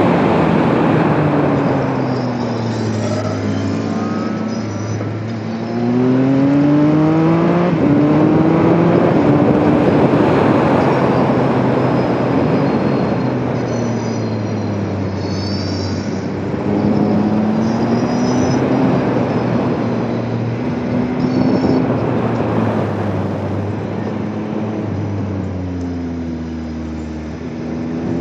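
Motorcycle engine pulling on the move, its pitch rising under acceleration and dropping back several times, over steady wind rush.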